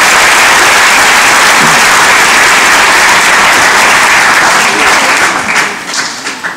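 Audience applauding: a steady, dense clapping that thins out about five seconds in, ending in a few scattered last claps.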